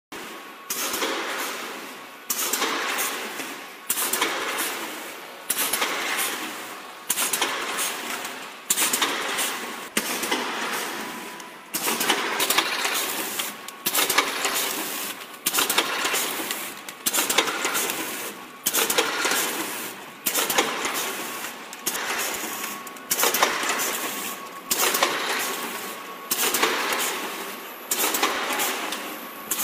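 Vertical powder sachet packing machine running in a steady cycle: a sharp clack about every 1.6 seconds, each followed by a rattling noise that dies away, over a faint steady whine.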